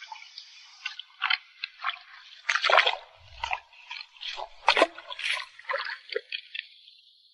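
Shallow rock-pool water splashing and sloshing in irregular bursts as a hand net is worked through it, with a couple of dull bumps in the middle.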